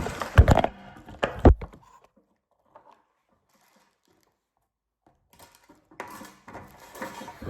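Fidget toys being handled and set down: a few sharp knocks and clatters in the first two seconds, then faint rustling near the end.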